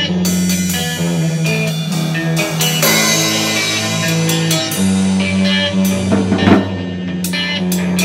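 Rock music with a drum kit, bass and guitar playing a steady beat, with one heavier drum hit near the end.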